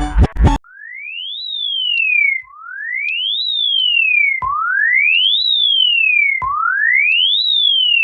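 Music cuts off about half a second in, then a single pure electronic alarm tone sweeps up and down like a siren, rising for about a second, falling for about a second, and jumping back to start again every two seconds: a mock emergency alert (EAS) alarm.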